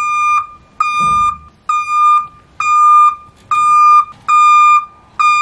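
Warning beeper of a battery-powered drop-deck trailer sounding a steady series of high-pitched beeps, about one a second, while the deck lowers to the ground.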